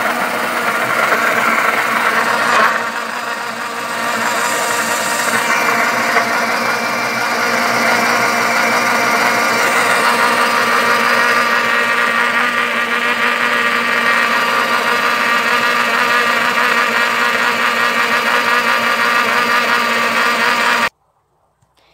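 Electric countertop blender running, its motor whining steadily as it purées raw yam, banana, ginger and water into a smoothie. The sound dips briefly about three seconds in, then holds steady until the motor is switched off and cuts out suddenly near the end.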